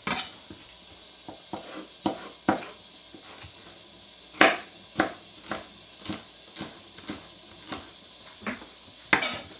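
Kitchen knife slicing vegetables: a run of short, sharp cutting strokes about twice a second, with a short pause near the middle.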